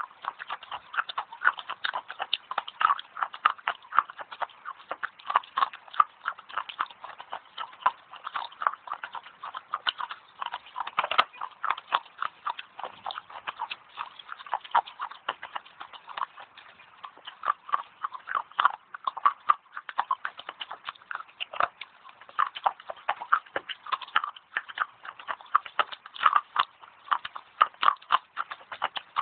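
Thin clay sticks being bitten and chewed close to the microphone: a fast, unbroken run of sharp, crisp crunches, several a second.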